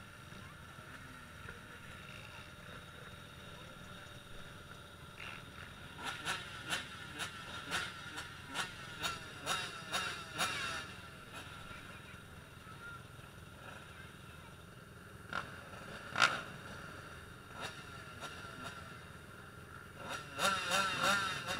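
MX2-class motocross bikes racing, their engines revving up and dropping back in repeated bursts, busiest about six to eleven seconds in and again near the end, with a single sharp peak about sixteen seconds in.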